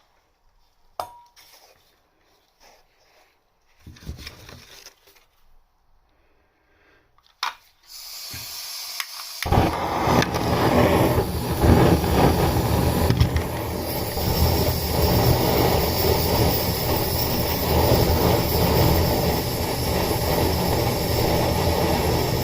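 A few sharp clicks and the clatter of tools being handled, then a gas hiss about eight seconds in. After that a butane blowtorch flame burns loudly and steadily through the rest, the kind of torch used for soldering copper pipe.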